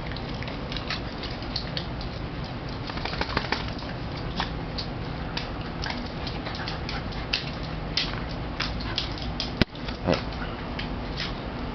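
Dogs' claws clicking and scrabbling irregularly on a wooden parquet floor as a corgi puppy and an older dog play.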